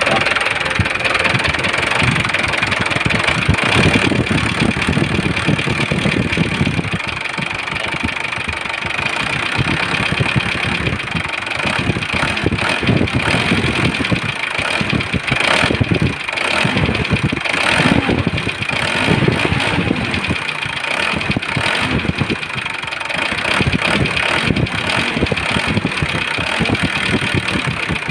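Mitsubishi 4D34 four-cylinder turbo diesel running at idle with a knock, its valve clearances freshly adjusted. The mechanic takes the knock for an internal fault with heavy blow-by, possibly a piston pin lock that has come loose and scored the cylinder liner.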